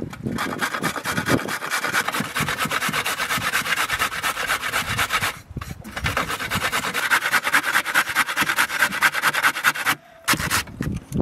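A carrot grated by hand on a four-sided metal box grater: quick, even scraping strokes in a steady run, with a short break about halfway through and another near the end.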